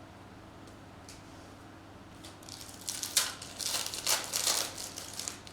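Crinkling and crackling of a trading card pack's foil wrapper being handled and torn open, a quick run of crackles starting about two seconds in and lasting some three seconds.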